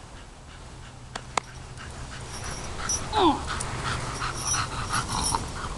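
Cavalier King Charles spaniel panting in quick short breaths as it runs back with a ball, with one short falling whine about three seconds in. Two sharp clicks come a little over a second in.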